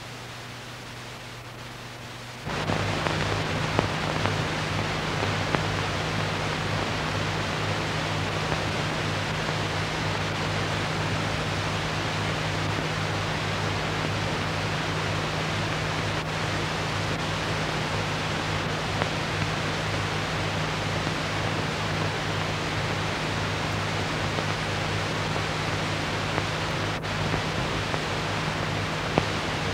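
Steady hiss with a low electrical hum and a few scattered clicks: the noise floor of an old film soundtrack under silent title cards. The hiss comes in abruptly about two and a half seconds in.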